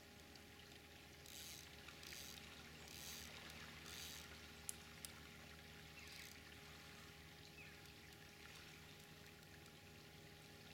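Faint fishing reel noise while playing a hooked fish on a bent rod: five short bursts of the reel winding or giving line, about a second apart in the first six seconds, with two sharp clicks near the middle.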